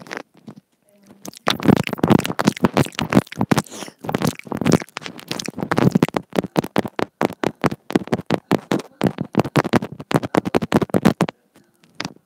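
Teeth and lips nibbling and working on a wired earbud cable's inline microphone held in the mouth, so the mic picks up close, dense crackling and clicking. It starts about a second in, runs with brief pauses, and stops shortly before the end.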